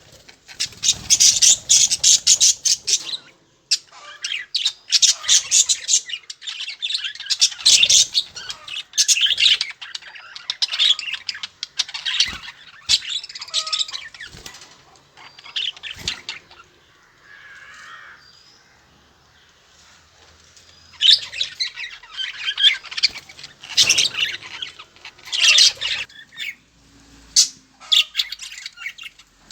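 Budgerigars chattering and squawking in dense, loud bursts of calls, with a quieter lull of a few seconds past the middle.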